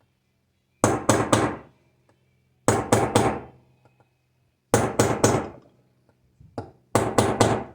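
Hammer taps driving a Cummins crankshaft seal installer tool: quick groups of three sharp strikes, about every two seconds, each with a short ring. These are final taps to make sure the seal is fully seated; it does not move any further.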